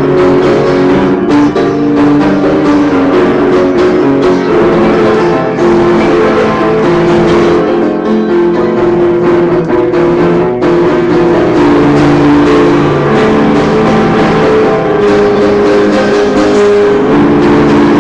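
Upright piano being played continuously and loudly, a steady stream of notes and chords with no pauses.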